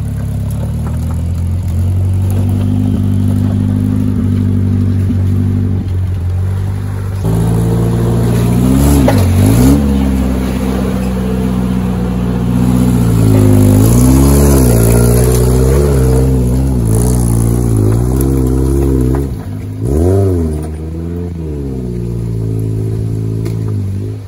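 Lifted off-road pickup truck's engine working under load while rock crawling: a steady drone at first, then from about seven seconds in revving up and down again and again in short throttle bursts.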